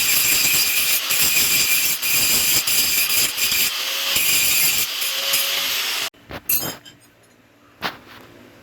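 Power tool working steel, a loud steady grinding hiss that stops abruptly about six seconds in, followed by a few light metallic clicks.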